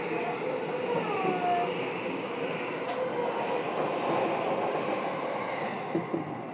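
Running noise inside a JR East E233-7000 series electric train's motor car on the move: a steady rumble of wheels on rail, with a few short, faint gliding whistles over it.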